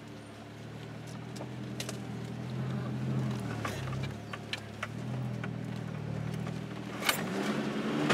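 Mitsubishi Pajero engine heard from inside the cabin, pulling the 4WD slowly up a steep rutted dirt track, its note rising and falling with the throttle. Sharp knocks and rattles come through as it crawls over the ruts, and the revs climb about seven seconds in.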